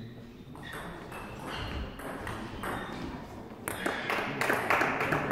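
Table tennis ball clicking off bats and table in a rally, a hit every half second or so. About four seconds in comes a quicker, louder run of clicks as the ball bounces on the table.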